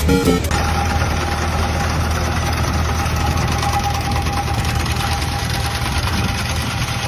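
An engine running steadily at constant speed, with a low rumble and a steady mid-pitched hum; music ends about half a second in.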